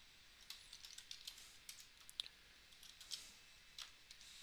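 Faint typing on a computer keyboard: a dozen or so irregular keystroke clicks.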